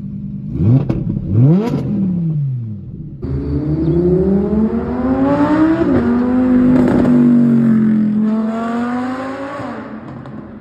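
Audi R8 V10 Plus's naturally aspirated V10 through a Quicksilver exhaust, revved twice in quick sharp blips while parked, then accelerating hard past with the pitch climbing, a gear change about six seconds in, and the sound fading as it drives away.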